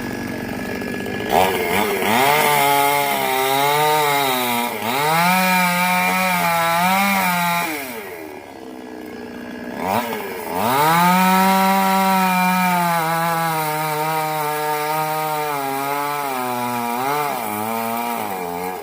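Chainsaw cutting into a coconut tree trunk. The engine is at high revs, and its pitch sags and recovers as the chain bites. About eight seconds in it drops back for a couple of seconds, then revs up again and keeps cutting.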